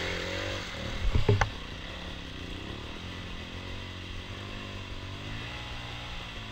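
Off-road motorcycle engine running, its revs rising and falling. A loud knock or clatter comes about a second in.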